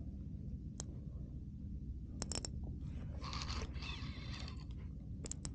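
Baitcasting reel whirring in two short bursts about three seconds in, with a few sharp clicks, as a hooked fish is played on a bent rod.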